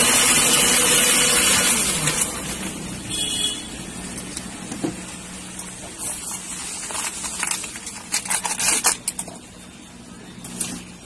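Electric countertop blender running loud on a cold coffee mix, its motor pitch sliding down as it is switched off about two seconds in. Then the clicks and crinkling rattles of thin plastic cups being handled, busiest in the last few seconds.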